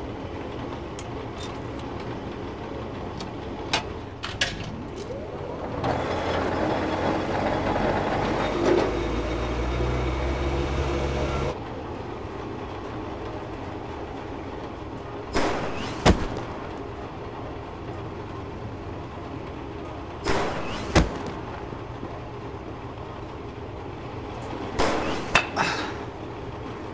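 A low steady rumbling drone. A swelling rush of noise stops abruptly, then three times a brief whoosh ends in a sharp crack.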